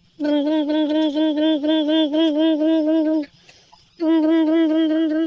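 A voice humming a long, steady, pitched note with a slight regular wobble, then a second shorter one after a brief pause: a hummed engine sound for a toy car.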